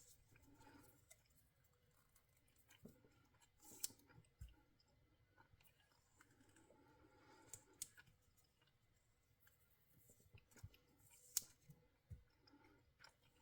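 Near silence broken by faint, irregular clicks and crackles of vinyl electrical tape being handled and wrapped around a power cord, the sharpest about eleven seconds in.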